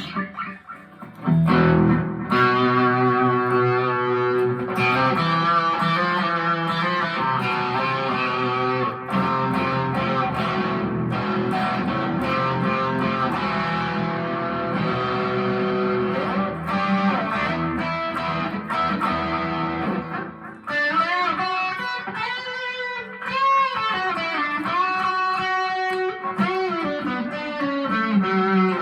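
Harley Benton TE-25th tele-style electric guitar with Roswell pickups played through a small Marshall amp: strummed, ringing chords, then about twenty seconds in, single-note lead lines with string bends.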